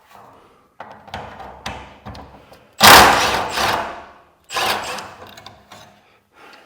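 Tool work on a garage door's hinge hardware: a few light knocks, then two loud bursts of about a second each, a second and a half apart, each fading out.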